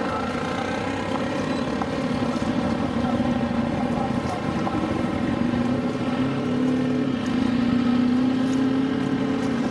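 An engine running steadily, its drone wavering slightly and rising a little in pitch after the middle, over a constant rushing noise.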